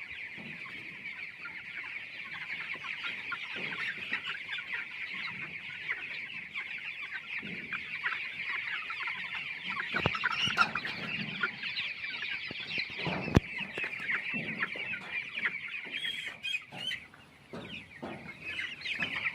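A flock of 20-day-old broiler chickens, many birds cheeping and clucking at once in a steady chatter. Two sharp clicks come partway through, and the chatter briefly thins near the end.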